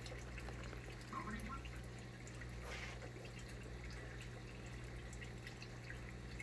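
Low steady room hum with faint clicks and handling noises of hands on a radio-controlled car's plastic wheels, and a brief rustle just under three seconds in.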